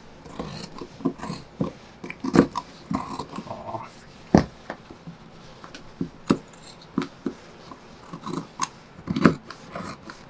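Large fabric shears cutting across a worn, faded blue European chore coat, a run of irregular crunchy snips through the heavy cloth with fabric rustling between them.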